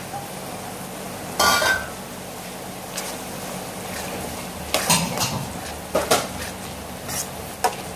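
Steel spoon scraping and clinking against a wide metal pan while fried onions and coriander are stirred through a mutton masala gravy: about half a dozen separate knocks and scrapes, spread over the few seconds.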